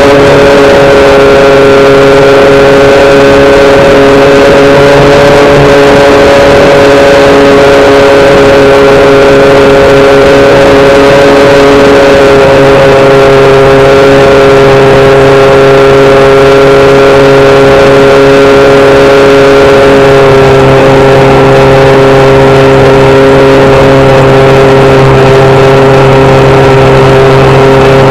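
Electric motor and propeller of a HobbyKing SkyEye FPV model plane in flight, heard onboard as a loud, steady drone. The pitch steps slightly about twelve seconds in and again about twenty seconds in, as the throttle changes.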